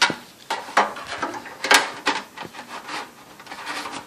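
The removable power-supply dust filter of a PC case being slid back into the bottom of the case: a run of rubbing and scraping with several short knocks and clicks.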